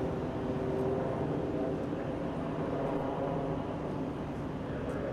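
Eurocopter EC175 helicopter flying past overhead: its twin turboshaft engines and rotors make a steady drone with several held tones.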